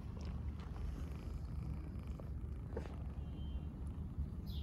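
A cat purring steadily, close to the microphone, while kittens nurse, with a faint click about three seconds in.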